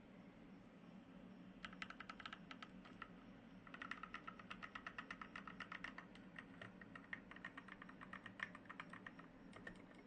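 Mechanical keyboard with Gateron Ink Black v2 linear switches being typed on: fast runs of key strokes begin a little under two seconds in, pause briefly, then run on as quick continuous typing before thinning out near the end.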